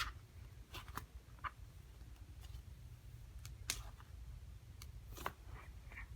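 Slime being squished and worked by hand: scattered small sticky clicks and pops, about half a dozen, over a low steady hum.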